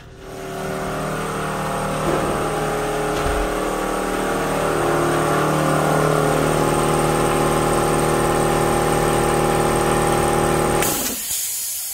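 Central Pneumatic 29-gallon air compressor's electric motor and oil-lubricated piston pump running under load, a steady mechanical drone filling the tank. About a second before the end it cuts off abruptly and a hiss of released air follows.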